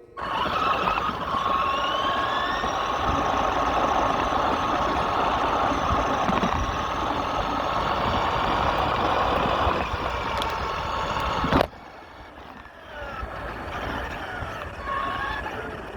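Radio-controlled truck driving, its motor and drivetrain whining and rising in pitch as it speeds up, over a steady rush of noise. The sound cuts off suddenly near the end, leaving a quieter whine that rises and falls.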